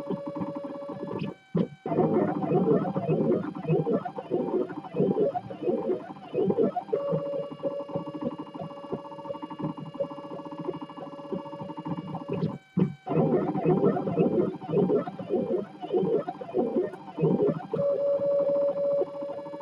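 3D printer's stepper motors whining as the print head moves, in the last moments of a print. A steady pitched whine breaks off twice, briefly, and each time gives way to several seconds of rapid warbling, shifting tones as the head makes quick short moves.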